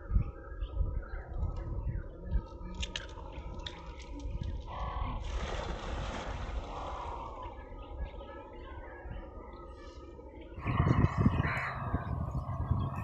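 A cast net hits the water about five seconds in: its weighted rim lands in a ring and makes a hissing splash lasting about a second and a half, over a low, uneven rumble.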